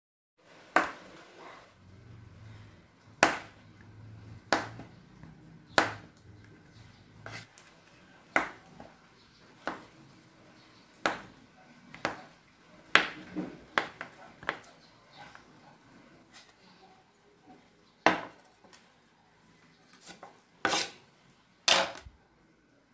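Kitchen knife cutting through a block of butter and knocking on a wooden cutting board, one sharp tap roughly every second.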